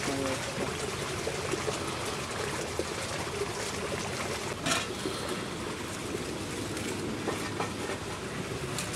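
Steady rushing outdoor ambient noise picked up by a camcorder's built-in microphone, with a short sharp click about four and a half seconds in and a fainter one near the end.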